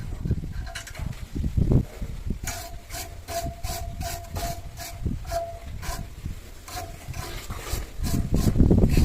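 Hand work on metal: about two and a half seconds in, an even series of sharp metallic clicks begins, roughly three a second, each with a short ringing note. Low thumps and handling knocks come before the clicks and again near the end.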